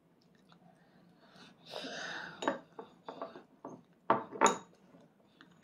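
Training chopsticks clicking and scraping against a ceramic rice bowl as a child scoops food, with scattered light clinks and two sharp knocks just after four seconds.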